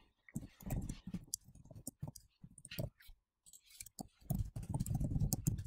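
Computer keyboard keys clicking in an irregular run of keystrokes as text is typed.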